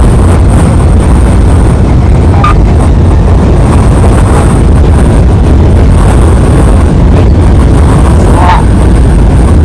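Loud, steady rush of wind and road rumble from a moving semi-truck, heavy in the low end from wind buffeting the microphone.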